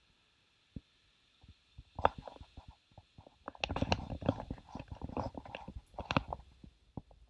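Handling noise on a handheld GoPro: irregular knocks, taps and rubbing as it is moved about. A single tap comes about a second in, and the noise grows busier from about two seconds in.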